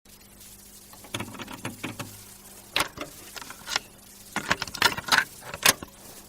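Irregular clicks, taps and rustles, a few of them sharp and loud, over a steady low hum; no music.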